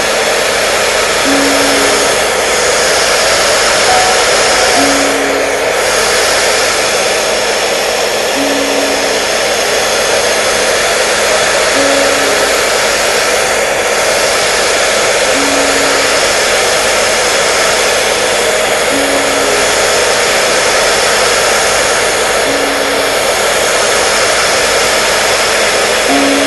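Hair dryer running steadily, a constant even whoosh used as white noise to soothe a baby. A short low tone repeats about every three and a half seconds beneath it.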